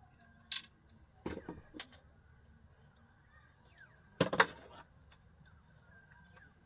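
A few sharp knocks and clatters of hard objects being handled, the loudest cluster about four seconds in.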